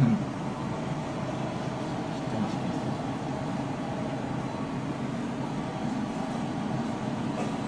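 A steady low hum, with a short thump right at the start and a faint clink near the end.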